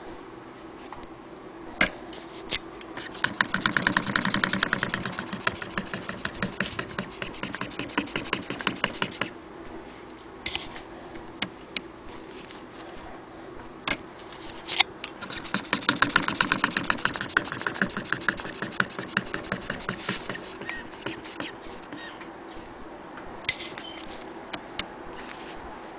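Willcox & Gibbs hand-crank chain-stitch sewing machine stitching denim: two runs of rapid, even clicking, each several seconds long, with scattered single clicks between them.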